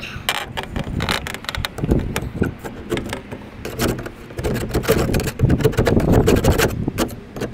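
Hand scraper scraping old sealant off the box truck's roof around a skylight opening, in many short, irregular strokes, busiest a little past the middle.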